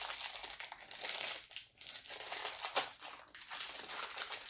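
Crinkling and rustling of the sealed packaging around a smartwatch charging cord as it is pulled open, an irregular run of crackles.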